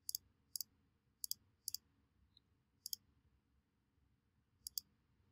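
Computer mouse button clicking about seven times at uneven intervals, each click a short, sharp double tick of press and release.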